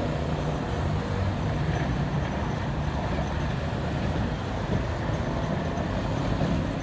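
A tram running along the street tramway, a steady low rumble with road traffic noise around it.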